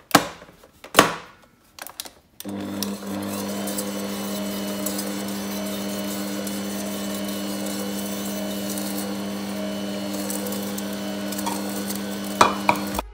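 A few knocks, then an electric mixer switches on about two seconds in and runs at a steady speed, beating egg whites and sugar into meringue. It stops abruptly near the end.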